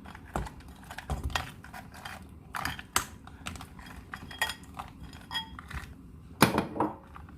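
Alaska crab pieces being put into a pot of soup: irregular hard clicks and clatters of crab shell and utensil against the pot, with a louder clatter about six and a half seconds in.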